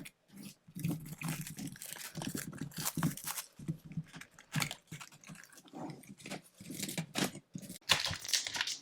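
A hockey card box and its wrapping being opened by hand: a quick, irregular run of crinkling, crackling and tearing packaging.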